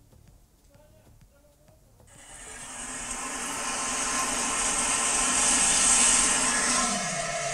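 A few faint handling clicks, then about two seconds in the test noise source inside an open, insulation-lined steel bucket switches on and swells to a loud, steady hissing noise, with a lower tone sliding down near the end.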